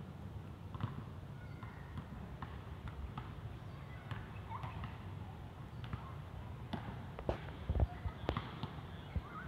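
Outdoor park ambience: a steady low rumble with scattered light taps, a few louder thumps about eight seconds in, and short bird-like chirps.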